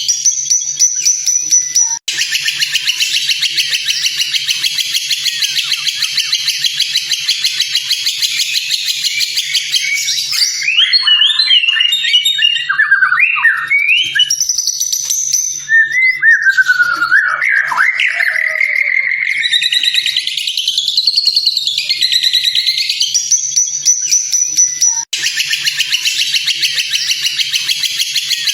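A looped birdsong tutor track for white-rumped shamas (murai batu). First comes a long, dense, high rapid trill. It cuts off abruptly and gives way to varied sliding, fluty whistled phrases, then the trill returns after another abrupt splice. A faint low hum lies under it throughout.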